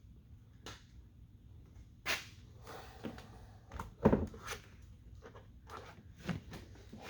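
Scattered clicks and knocks of hands and a tool working at the plastic mount of a pickup's door mirror, searching for its hidden catch; the sharpest knock comes about four seconds in.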